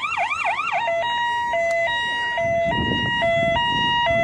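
Electronic emergency-vehicle siren: it starts abruptly with a few quick yelping pitch sweeps, then settles into a two-tone hi-lo wail alternating about twice a second. A low rumbling noise joins in about halfway through.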